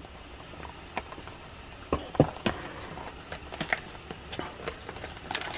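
Cardboard trading-card box being opened by hand: scattered small clicks and crackles as the end flap is pried and pulled open.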